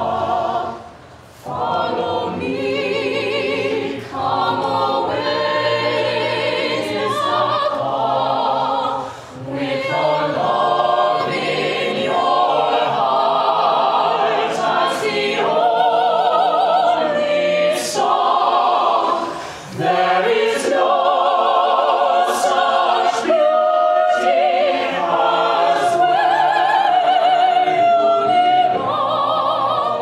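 Mixed-voice choir of men and women singing a cappella, with no instruments. The singing comes in sustained phrases with short breaks between them.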